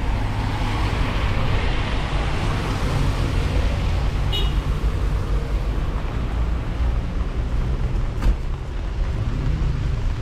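Street traffic on a rainy day: a vehicle passes with a hiss that swells and fades over the first few seconds, over a steady low rumble. A brief high squeak about four seconds in and a single knock about eight seconds in.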